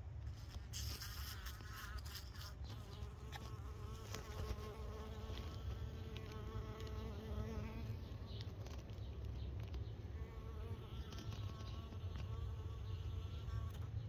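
Honeybees buzzing as they gather pollen in a pumpkin blossom, the hum wavering in pitch as they move about. A crackling rustle in the first couple of seconds, and a steady low rumble underneath.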